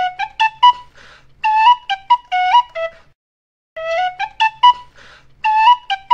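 Background music: a short melody of quick notes on a flute-like wind instrument, played once and then repeated after a brief pause about three seconds in.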